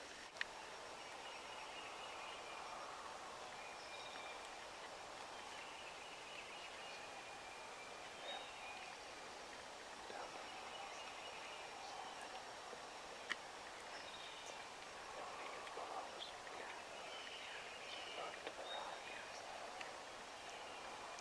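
Faint woodland birdsong: songbirds calling in short phrases over a steady quiet hiss, with a couple of sharp clicks.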